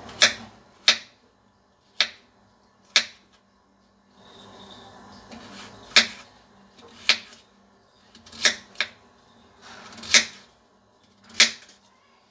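Kitchen knife chopping peeled potatoes on a wooden cutting board: about ten sharp knocks of the blade striking the board, spaced unevenly, roughly one a second.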